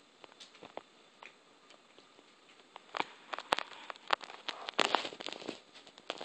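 Scattered light clicks and crackles, sparse at first, then busier and louder from about three seconds in.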